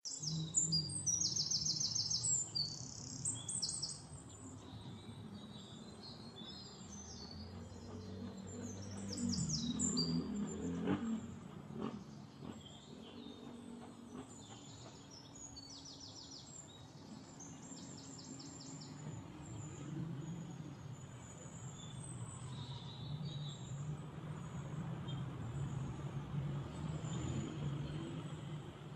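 Small birds chirping in quick, rapidly repeated trills, loudest and busiest in the first four seconds, then in scattered bouts, over a low steady rumble.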